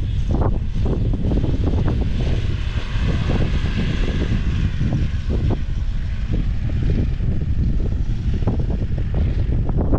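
Four-wheel-drive SUV driving through soft sand on the dunes, its engine and tyres swelling as it passes close by about a third of the way in and then fading. Gusty wind buffets the microphone throughout.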